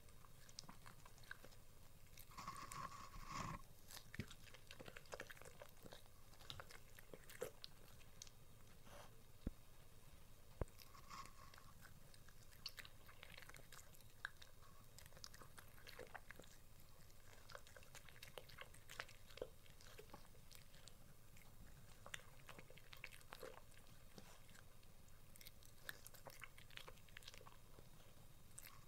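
West Highland white terrier chewing and biting hand-fed pieces of steak and vegetables: faint, irregular wet clicks and crunches, loudest about three seconds in.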